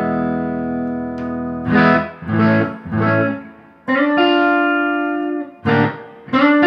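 Electric guitar played with a clean tone, strumming chords: one chord left ringing, then three short stabs about a second apart, then another held chord, a quick stab and a fresh chord near the end.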